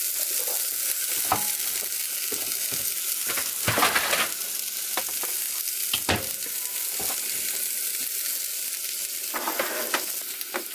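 An egg and chopped vegetables frying hot in butter in a lidded skillet: a steady sizzle with a few louder crackles and pops.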